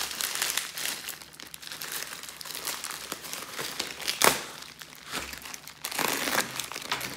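Plastic mailer bag crinkling and rustling as the parcel is handled and turned over, with a single sharp knock about four seconds in. Near the end, a box cutter slits through the plastic and packing tape.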